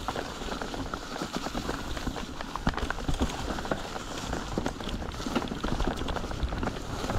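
Orbea Occam mountain bike ridden along a rough singletrack: tyres rolling over dirt and stones, with many quick clicks and rattles from the bike and a steady low rumble of wind on the helmet camera's microphone.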